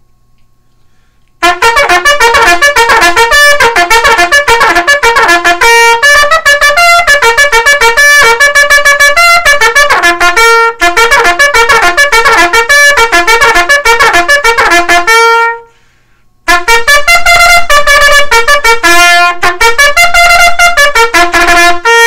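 3D-printed plastic Bb herald trumpet played loudly with a Bach 3C mouthpiece: a quick run of short tongued notes starting about a second and a half in, a brief break about two-thirds of the way through, then more notes. It sounds about 20 cents flat, which the maker puts down to the mouthpiece not going into the printed leadpipe as far as designed.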